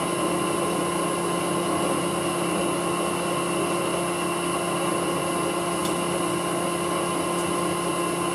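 Vintage Karger metal lathe running steadily while a twist drill in the tailstock chuck bores into the spinning bar stock, an even mechanical hum with a steady whine on top. The drill is cutting more easily now.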